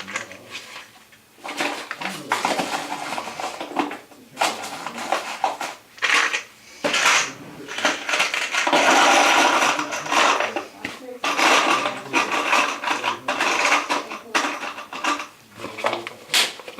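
Hard objects clinking, knocking and scraping as they are handled, with a longer rushing noise about halfway through.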